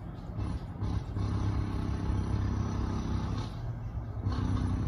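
A motor vehicle's engine running nearby, a steady low hum that fades briefly about three and a half seconds in and then returns.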